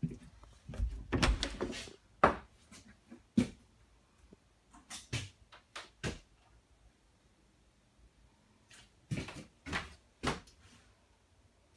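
A run of knocks and clicks from a camper's bathroom door and its fittings being handled. The busiest, loudest clatter is in the first two seconds, then single knocks, a quieter stretch, and three more knocks near the end.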